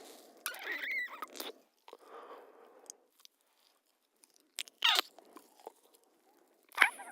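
Couple kissing: wet lip smacks and mouth noises in irregular bursts. The loudest come about a second in, near five seconds and near the end, with softer mouth sounds between.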